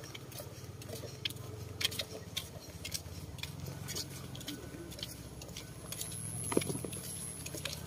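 Footsteps of people walking in flip-flops on a concrete path: an irregular run of light slaps and scuffs over a low steady rumble, with one louder knock about six and a half seconds in.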